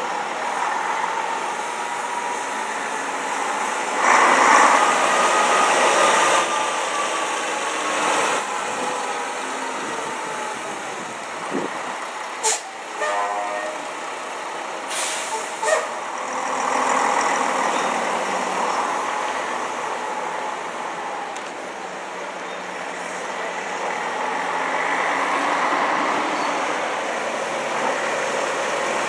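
Coach engines pulling away and driving past: a Volvo coach, then a vintage Bedford coach, running with rises in engine note as they accelerate. There are a couple of short sharp noises near the middle.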